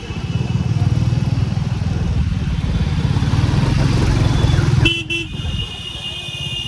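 Motorcycle engine running with a heavy low rumble that drops away about five seconds in, as a vehicle horn sounds in a steady high tone for about two seconds.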